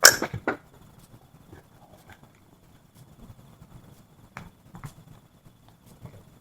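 Wood campfire: a loud clatter of several sharp knocks at the very start, then scattered small crackles and pops.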